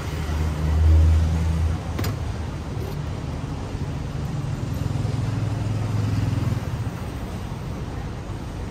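Road traffic: motor vehicle engines passing close by, a low hum that swells about a second in and again from about four to six and a half seconds in. A single sharp click comes about two seconds in.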